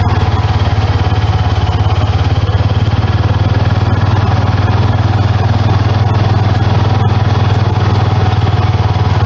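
An engine running steadily at a constant speed, a low, even note that does not change.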